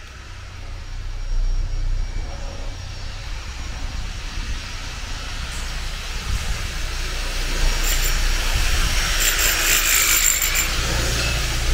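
A steady low rumble, joined about eight seconds in by a harsh rasping hiss from a tool being worked for about three seconds.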